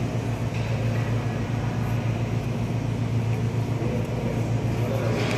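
Steady low mechanical hum of an airport terminal's background, with a faint voice in the distance near the end.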